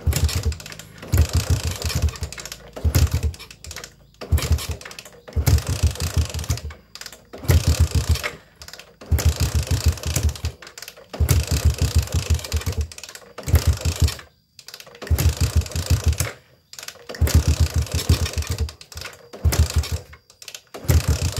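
Yamaha Jupiter MX four-stroke single-cylinder motorcycle engine being kick-started over and over, about a dozen kicks, each a second of rapid cranking pulses, without the engine catching. It is an engine that is very hard to start.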